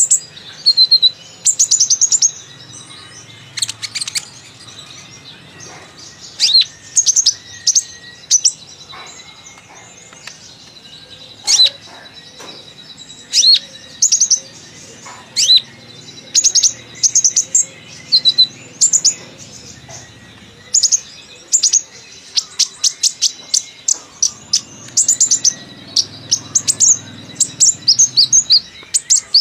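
Kolibri ninja (purple-throated sunbird) singing a chatty song of rapid high chirps and trills in short bursts, mixed with imitations of other birds' calls. The bursts come thick and fast near the end.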